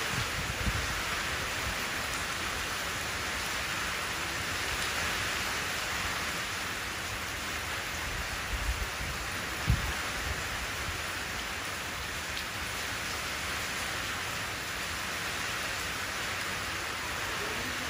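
Steady rain falling into a shallow puddle, an even hiss of drops hitting the water. A few brief low thumps stand out, the loudest about halfway through.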